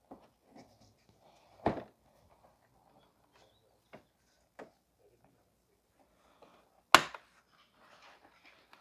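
Plastic clips snapping and the plastic front bumper cover of a Honda Civic knocking as it is worked loose by hand. A loud knock comes about two seconds in, two faint taps around four seconds, and the loudest, a sharp snap, about seven seconds in.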